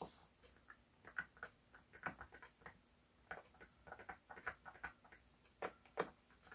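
Faint, irregular light ticks and clicks of a thin stir stick working in a small mixing cup as thinned finishing resin is stirred.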